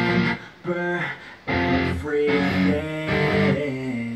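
Guitar-led music played through a CCE SR-5050 stereo receiver and its speakers.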